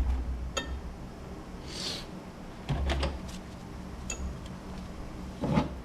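A few scattered knocks and clicks of metal parts and tools being handled, over a low steady hum.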